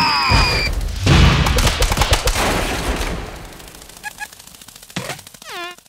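Cartoon sound effects: a high-pitched falling yelp, then a rapid volley of sharp hits like machine-gun fire lasting about two seconds and dying away. A short squeaky falling cry comes near the end.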